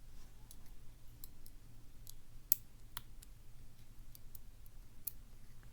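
Irregular light metallic clicks and taps of small lock pins and tools being handled while the driver pins are taken out of a pin-in-pin padlock core, with a few sharper clicks about two and a half, three and five seconds in.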